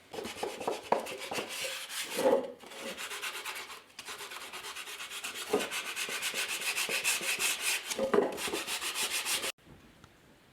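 Rapid, rhythmic scraping strokes on a hard surface. They pause briefly about two and a half seconds in, resume, and cut off suddenly near the end.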